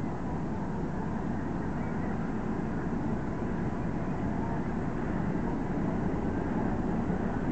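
Deep, steady rumble of a passing lake freighter's engines, slowly growing louder as the stern draws near.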